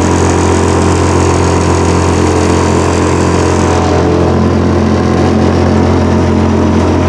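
Honda four-stroke outboard motor running steadily at cruising speed, driving a Progress-4 motorboat under way, with a hiss above it that thins about four seconds in.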